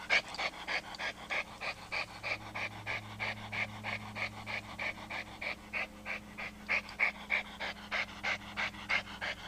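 Dog panting rapidly and evenly, about four to five breaths a second, over a steady low hum.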